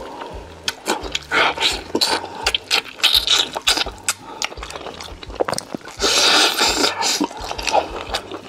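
Close-miked eating sounds: chewing and crunching, with quick clicks and scrapes and a longer noisy stretch about six seconds in.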